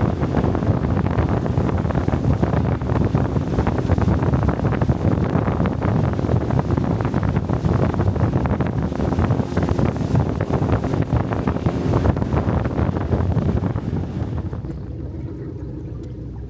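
Motorboat under way, with wind buffeting the microphone in a heavy, gusty rumble. Near the end the rush of wind and water eases and a lower, steadier hum is left.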